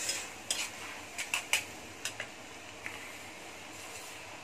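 A steel spatula clicks and scrapes against a kadhai about six times in the first two seconds of stirring. Under it is a steady sizzle of chopped onion and dried red chilli frying in mustard oil.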